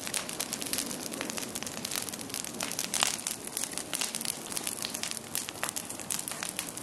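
Wood campfire burning hard in tall flames, a dense crackle of small clicks over a hiss, with a few louder pops from the burning wood now and then.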